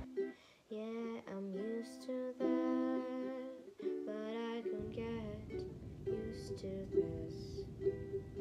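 Background pop song with ukulele-like plucked strings and a sung melody. About halfway through, a steady low rumble joins underneath the music.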